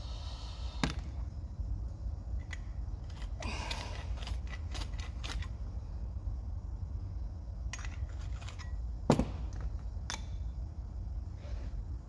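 Scattered clicks and knocks of a steel door hinge and hand tools being handled at a workbench, with a brief rattling scrape a few seconds in and the sharpest knocks about a second in and about nine seconds in, over a steady low hum.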